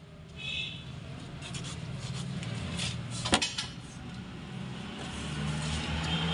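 A low engine rumble that grows louder, settling into a steady hum near the end, with a single sharp metallic clink about three and a half seconds in.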